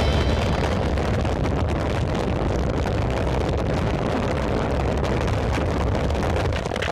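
Steady rumbling rush of wind noise buffeting the microphone.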